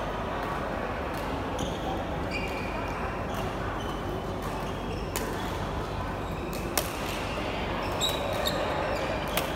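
Badminton rally: three sharp racket strikes on a shuttlecock in the second half, about a second and a half apart, with short squeaks of court shoes on the floor and a steady murmur of background voices.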